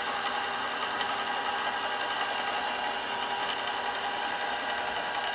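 Milling machine spindle running steadily while a small drill bit feeds down into a brass piston, drilling the wrist pin hole.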